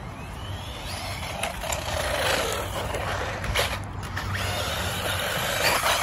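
A 1/16-scale brushless RC truck driving on concrete: a motor whine rises as it speeds up over the first two seconds, then a gritty run of drivetrain and tyre noise with a few sharp knocks.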